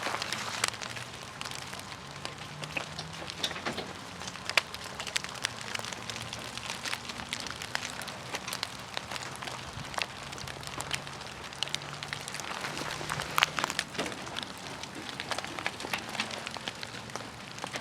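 Pieces of melting ice dropping out of ice-coated trees and hitting the ground and branches: a steady, irregular patter of many small ticks and clicks like hail, with a few sharper cracks.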